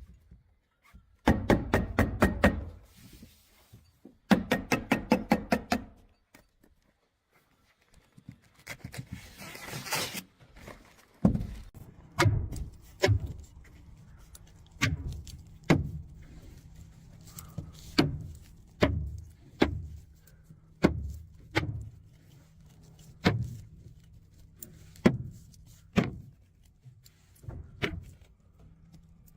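Construction work: two short bursts of rapid, rattling strikes, a brief hiss, then sharp knocks roughly once a second over a low steady hum.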